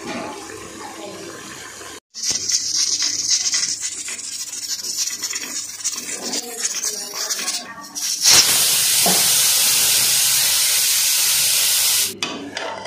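Pressure cooker hissing steam, then about eight seconds in its whistle goes off with a loud, steady rush of escaping steam for about four seconds before cutting off abruptly. This is the whistle that marks the cooker reaching full pressure.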